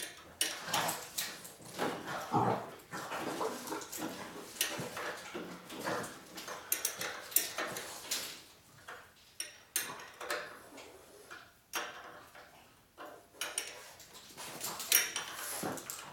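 Hand tools clinking and knocking on a motorcycle's metal parts while the front wheel and brake area are worked on: irregular short clicks and clanks.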